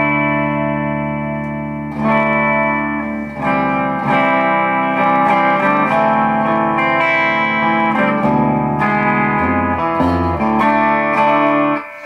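Squier Stratocaster electric guitar on its bridge pickup, played clean through a Peavey Valve King tube amp. Chords are strummed and left to ring, a new one every second or two, and the playing stops just before the end.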